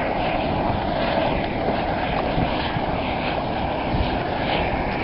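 Steady drone of a jet ski engine running, even in level throughout.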